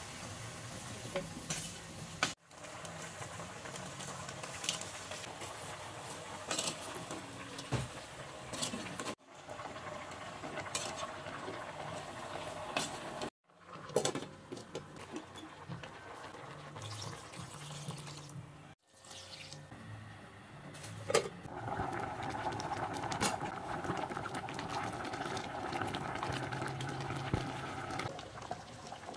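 Cooking at a stove: a large aluminium soup pot and its lid clink now and then, and a metal ladle stirs soup as it bubbles in the pot, with scattered sharp clicks of metal on metal. The sound drops out briefly several times between separate takes.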